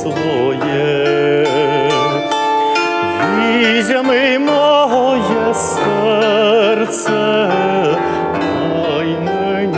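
Bandura, the Ukrainian plucked string instrument, played in plucked chords and runs under a man's singing. The voice holds long notes with a wide vibrato.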